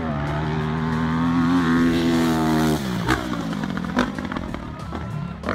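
Dirt bike engine held wide open at high revs under load, its pitch creeping up, then the throttle is cut suddenly about three seconds in as the bike leaves the ground. A couple of sharp knocks follow within the next second.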